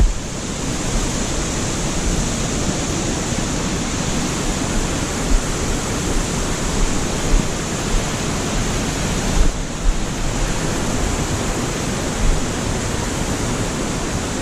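Waterfall on a mountain brook rushing steadily: a continuous hiss of falling water close to the microphone.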